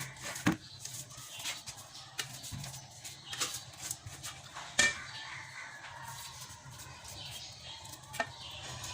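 Scattered sharp clinks and taps of kitchen utensils over a low steady hum, with a few faint short calls in the background.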